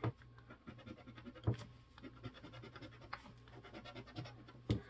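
Scratching the coating off an instant scratch-off lottery ticket: a run of faint quick scraping strokes with a few sharper clicks.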